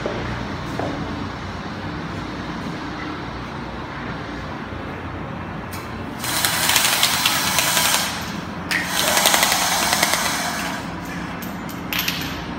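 Construction-site power tool hammering rapidly in two bursts of about two seconds each, around six and nine seconds in, over a steady low rumble of site machinery.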